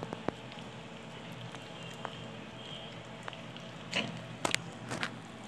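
Puppies eating roti and jostling in a wire crate: scattered small clicks and taps, with a louder cluster of clicks and knocks near the end.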